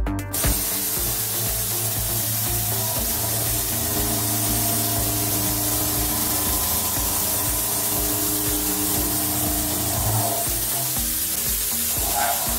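CNC machining center milling a steel mold core: a steady, even cutting hiss with a faint high spindle whine, over quiet background music with a steady beat.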